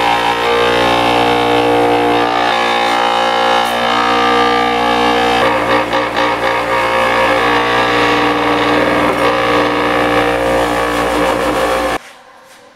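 Powered wire brush wheel running while corroded battery master switch parts are scrubbed clean against it. It is loud and steady, then cuts off abruptly near the end.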